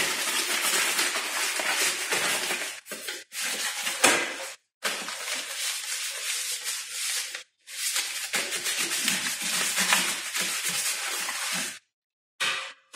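Butter wrapper rubbed around the inside of a metal butter-cake tin to grease it: a steady scratchy rubbing that stops abruptly several times and starts again.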